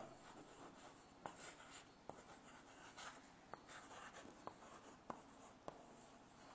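Chalk writing on a blackboard, faint: a string of light, irregular taps, about seven, with soft scratching between them as the strokes are made.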